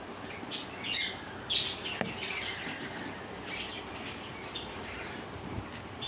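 Cockatiels giving short, high calls: a cluster of them in the first two seconds, then a few more spaced out later.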